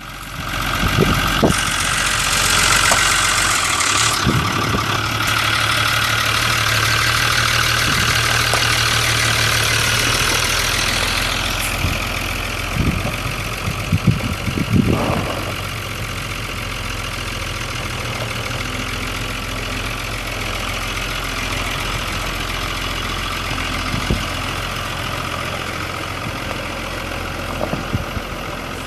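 The 1984 Iveco Z220 cab-and-chassis truck's Iveco 8060 six-cylinder diesel engine running as the truck drives across gravel. It is loudest and hissiest for roughly the first dozen seconds, as the truck passes close by, then settles into a steadier, quieter running as it moves off and turns back.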